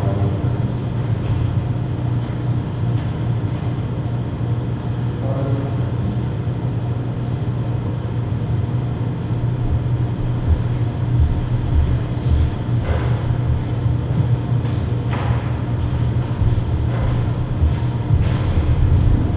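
A steady low hum, even in level throughout, with a few faint knocks and clicks over it.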